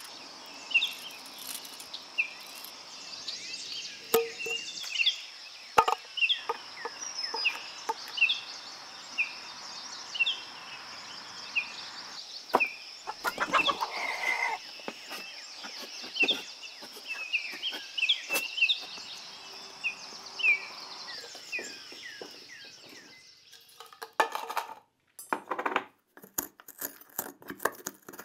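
A songbird chirping over and over, short falling notes every half-second or so, over a steady high insect-like hiss, with scattered knocks and scrapes of a knife cutting pine bark and shoes on a wooden ladder. Near the end the outdoor sounds stop and a tool scrapes and clicks against the inside of a small brass cup.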